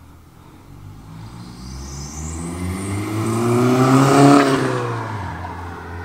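B8 Audi A4 accelerating past: the engine note rises in pitch and grows louder as the car approaches, is loudest as it passes about four seconds in, then drops and fades as it drives away.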